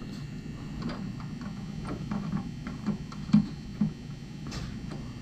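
Scattered light metallic clicks and a few short dull knocks, the loudest two a little past the middle, from a hood strut bracket and its fender bolt being handled and fitted by hand.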